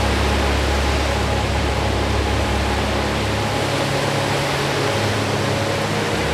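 Steady, even wash of Lake Erie waves on the shore. Under it run soft, sustained low music chords that change about three and a half seconds in and again near the end.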